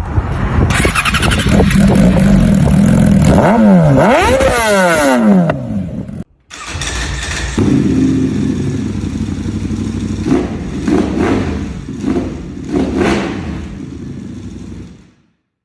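Sport-bike engine through an aftermarket exhaust, revving loudly with its pitch rising and falling. After a sudden break, another motorcycle runs near idle with several short, sharp throttle blips before cutting off.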